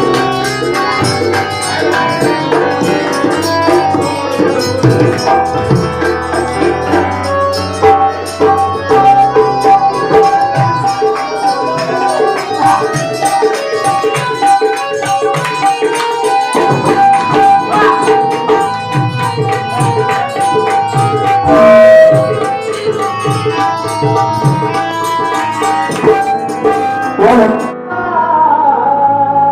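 Harmonium playing a melody over a steady hand-drum beat: an instrumental passage of a Marathi Bhim geet.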